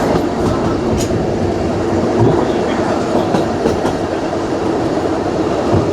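Isle of Man Steam Railway train running on narrow-gauge track: a steady rumble with occasional sharp clicks of the wheels over the rail.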